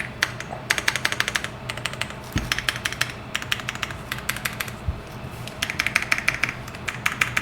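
Typing on a Royal Kludge RK R65 mechanical keyboard: quick runs of sharp key clacks with short lulls between, and two deeper thuds.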